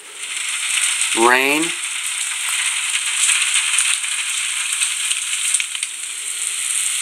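Rain sound effect from the HTC Sense 3.0 weather animation, played through a phone's small speaker: a steady hiss of falling rain with no low end.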